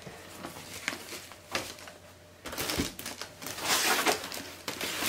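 Packing material being handled in a cardboard box: a foam packing sheet rustling and scraping against the cardboard as it is pulled out, in several short bursts.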